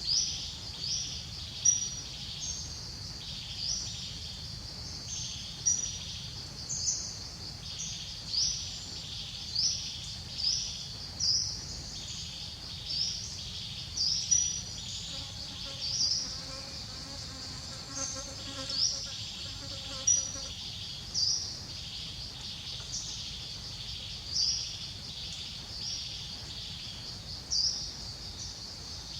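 A steady, high chorus of insects, with short rising chirps repeating about once a second.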